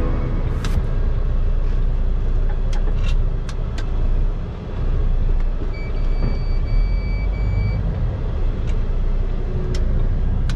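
Diesel engine and cab noise of a 7-tonne truck moving slowly, heard from inside the cab: a steady low rumble with scattered light clicks and knocks. A high electronic beep sounds three times in quick succession about six seconds in.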